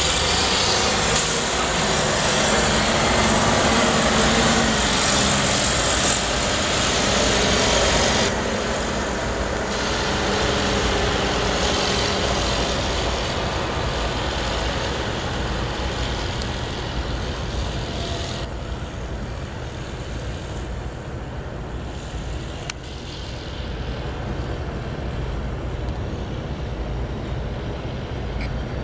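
Steady engine and machinery drone, a low hum under a hiss that steps down about 8 seconds in and again near 18 seconds. A single sharp click about 23 seconds in.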